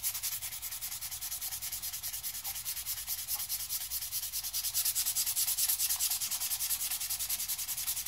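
150-grit sandpaper rubbed by hand over a wooden hatchet handle, a high scratchy hiss in quick, even back-and-forth strokes, smoothing the roughed-in handle.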